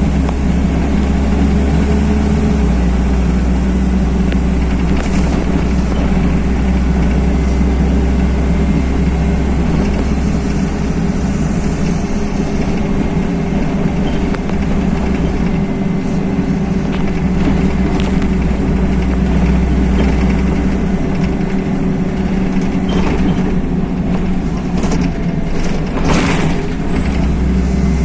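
LiAZ-5292.21 city bus heard from inside the passenger cabin while driving: steady diesel engine drone over road rumble, with a few brief knocks near the end.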